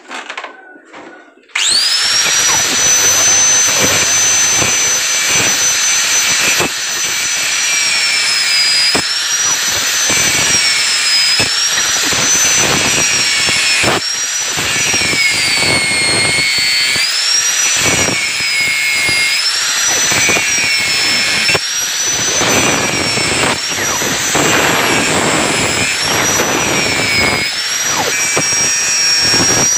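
Electric hand grinder starts about a second and a half in and runs at full speed with a high whine. Its pitch sags and recovers again and again as the disc is pressed into the steel ball-joint rivets to grind them off.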